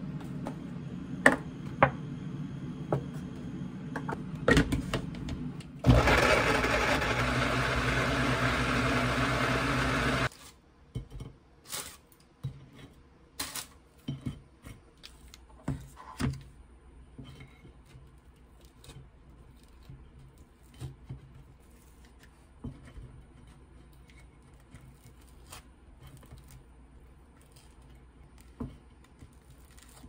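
Countertop blender blending banana and milk, running steadily for about four seconds and cutting off suddenly. Before it, milk pouring into the jar and a few knocks; after it, faint clicks and scraping of a knife spreading cream cheese on bread.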